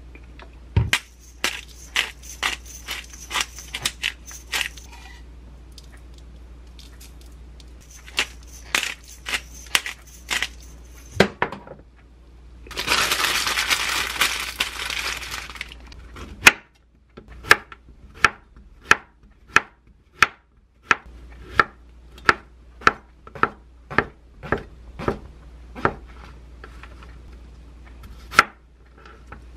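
Quick clicking of a pepper grinder seasoning raw pork, in two bursts, then the loud crinkle of paper as the meat is wrapped up. After that, a chef's knife chops vegetables on a wooden cutting board in a steady run of strokes, about three every two seconds.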